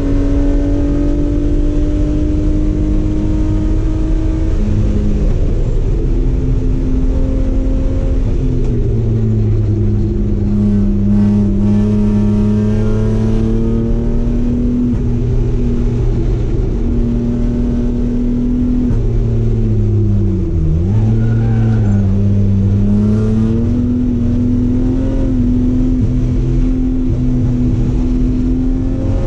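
Race car engine running hard at track speed, its note climbing and dropping again and again through gear changes, with a deep dip in pitch about two-thirds of the way through as it slows.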